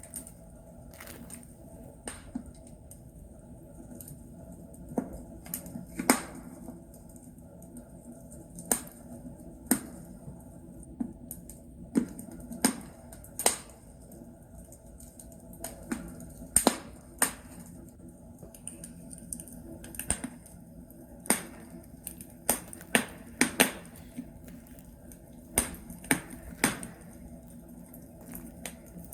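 Wood logs burning in a fireplace, crackling with irregular sharp pops and snaps, about one a second and unevenly spaced, over a low steady background.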